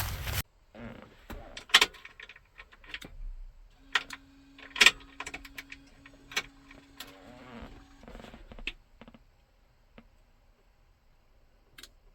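Keys jangling and a run of sharp clicks and knocks, like handling gear and switches, with a steady low buzz lasting about four seconds in the middle.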